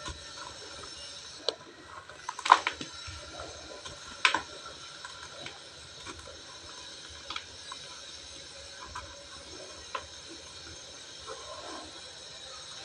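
Dry cement and ash lumps crunching as they are crumbled: a string of sharp cracks and crackles, the loudest about two and a half seconds in and again just after four seconds, then sparser, smaller ones.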